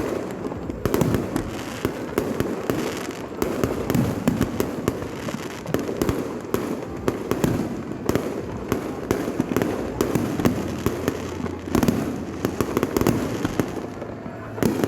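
Fireworks display: a dense, irregular string of sharp bangs and crackles going off several times a second.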